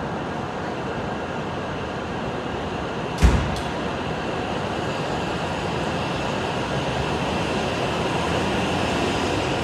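Hokuriku Shinkansen E7/W7-series bullet train pulling out of the station past the platform, a steady rushing rumble that builds as it gathers speed, with a whine growing stronger and edging upward. A single sharp thump about three seconds in.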